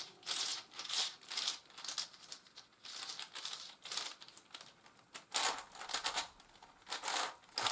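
Plastic layers of a 3x3x9 cuboid twisty puzzle clacking and scraping as it is turned by hand, in a quick irregular series. The turning is a bit crunchy, as is usual for a puzzle with nine packed layers.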